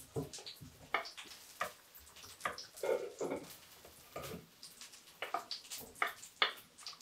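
Light, irregular taps and knocks of a wooden cutting board against an enamel bowl and the table as chopped boiled egg is tipped from the board into the bowl.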